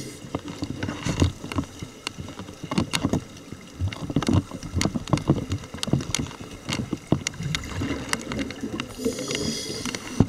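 Scuba diver's own regulator and bubbles heard through an underwater camera housing: irregular clicks and low gurgling, with a rush of exhaled bubbles near the end.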